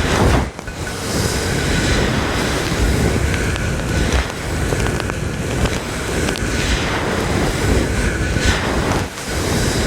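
Brush strokes worked hard against the microphone, heard close up as dense, rushing noise, with short breaks about half a second in and again near the end.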